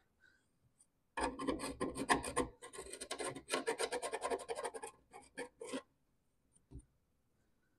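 A hand file rasping in quick strokes, several a second, around the inside of a mower deck spindle housing's bearing recess, with a few slower strokes and a light knock near the end. The filing takes down an edge in the bore that stops the new spindle bearing from seating.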